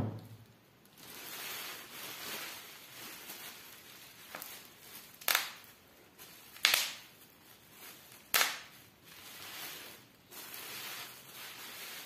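Plastic bubble wrap being crushed and balled up in gloved hands: a crinkling rustle broken by three sharp pops of bursting bubbles, about five, seven and eight seconds in.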